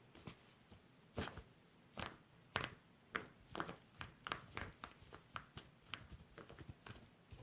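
Slime being squeezed and pressed by hand, making a string of short sticky pops and clicks, sparse at first and coming faster, about three a second, in the second half.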